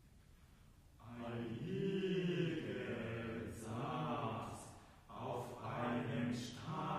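Mixed chamber choir singing a cappella, coming in about a second in and pausing briefly around five seconds in before the voices resume.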